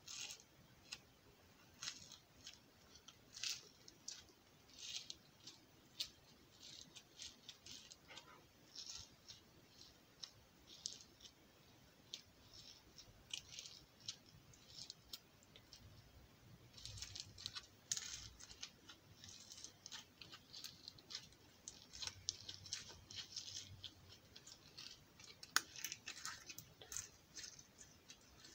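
Faint sticky clicks and crackles of purple slime being squeezed and pulled between the fingers, in quick irregular bursts.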